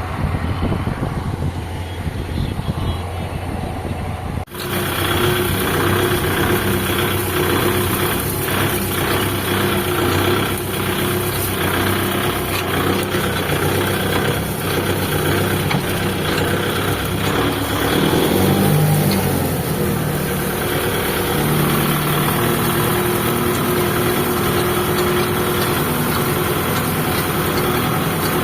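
Diesel engine of a tractor and harvesting machinery running steadily in a wheat field. About four and a half seconds in, the sound switches abruptly from a low engine hum to a louder, fuller machinery sound.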